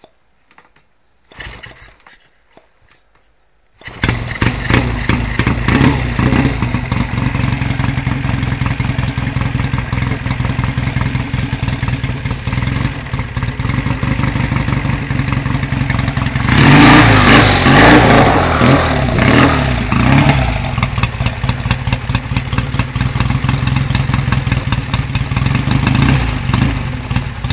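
1952 Royal Enfield motorcycle's overhead-valve engine kick-started: faint kicks, then it fires about four seconds in and settles to a steady idle. About two-thirds of the way through the throttle is opened and it revs louder for a few seconds before dropping back to idle.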